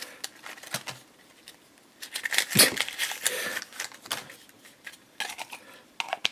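Clear hard-plastic toy test tubes with snap-on caps being handled and opened, giving scattered clicks and taps of plastic on plastic. About two and a half seconds in comes a denser, louder clatter and crinkle as the contents are worked out of a tube.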